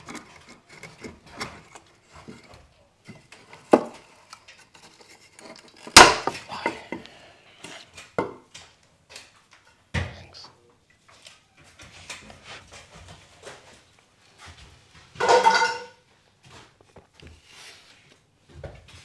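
Knocking and clattering of timber and hand tools as an old piece of wood is worked loose from the framing. The loudest is a sharp bang about six seconds in, and a short pitched squeak comes near the end.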